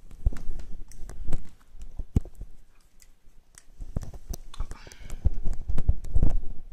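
Close handling noise: irregular clicks, knocks and rubbing as a phone and its USB cable are handled beside a laptop microphone. It eases off around the middle and is loudest near the end.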